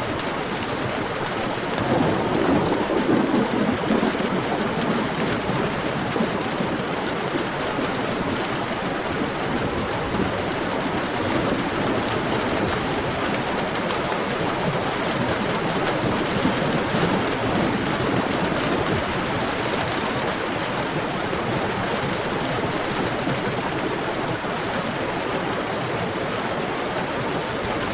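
Heavy rain falling steadily, with a low rumble swelling for a couple of seconds about two seconds in.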